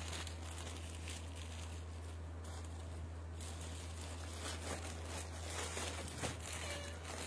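Clear plastic garment packaging crinkling and rustling as a packaged suit is handled, in short scattered bursts over a steady low hum.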